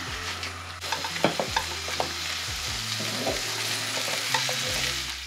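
Diced potatoes sizzling steadily in oil and onion-tomato masala in a non-stick frying pan while a spatula stirs them, with short scrapes and taps of the spatula against the pan.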